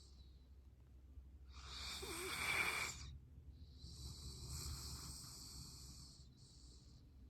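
Golden retriever snoring in its sleep: a louder snoring breath about two seconds in, then a longer, softer one lasting about three seconds.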